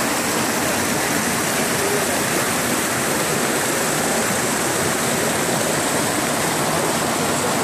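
Small waterfall rushing steadily over rocks and cascading down a rocky stream.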